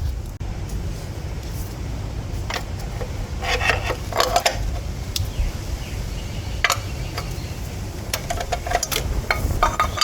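Scattered metallic clinks and rattles of hand tools and loose engine parts, with the densest cluster about four seconds in, over a steady low rumble.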